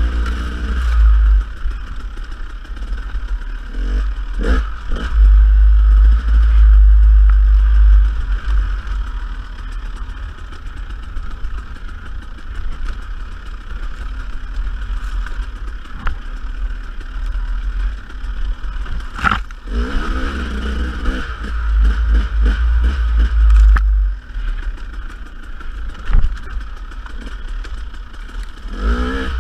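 Dirt bike engine running and revving up and down while riding a trail, under a heavy low rumble, with several sharp knocks and some clatter from the bike.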